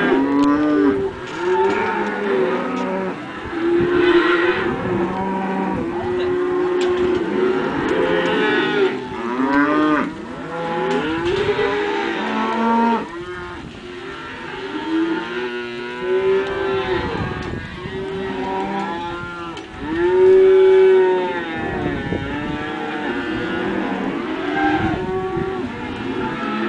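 A herd of cattle mooing, many overlapping calls rising and falling in pitch one after another, with a louder, longer moo about twenty seconds in.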